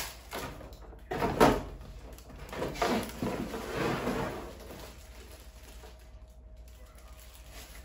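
Handling noises from unpacking a ring light: knocks and rustling as the light's ring, its cardboard box and plastic packaging are moved, loudest about a second and a half in and quieter over the last few seconds.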